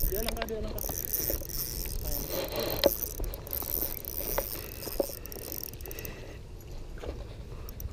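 Small Shimano spinning reel being cranked to retrieve line, its gears turning, with scattered sharp clicks.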